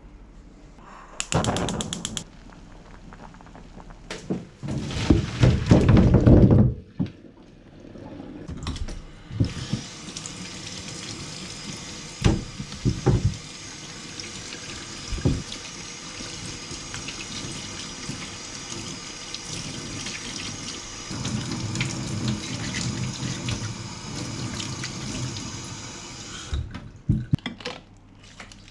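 Kitchen tap running into a stainless-steel sink while raw chicken carcasses are rinsed by hand for soup stock: a steady hiss of water with splashing, a few sharp knocks, and heavier sloshing near the end. The first several seconds hold loud irregular splashes of water.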